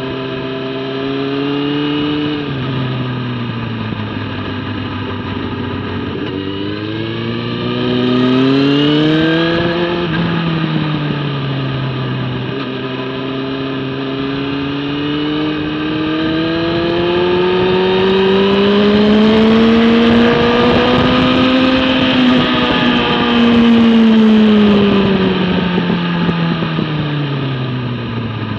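Motorcycle engine heard on board while lapping a race track, its pitch falling and rising with the throttle through corners: a fall at the start, a climb to about ten seconds in, a dip, then a long climb peaking a little after twenty seconds and falling away near the end. Wind rushes over the microphone throughout, loudest around the highest-speed stretch.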